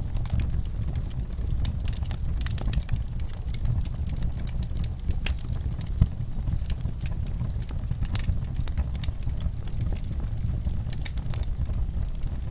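Wood fire burning in a fireplace, crackling with frequent small pops over a steady low rumble, one louder pop about six seconds in.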